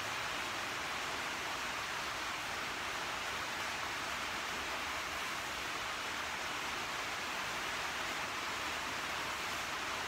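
Steady rain falling on a corrugated metal shed: an even hiss with no breaks.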